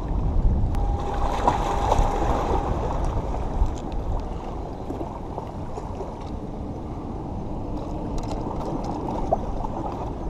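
Small waves washing steadily against the rocks of a jetty, with a few faint clicks from handling the fishing line.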